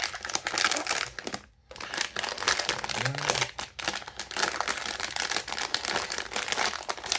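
Plastic blind-box packaging crinkling and rustling in the hands as a sealed figure wrapper is handled and opened, an irregular run of crackles with a brief pause about one and a half seconds in.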